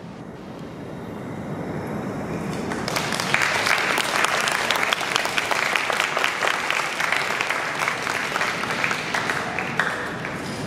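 Audience applause, starting thin and swelling into dense, steady clapping about three seconds in.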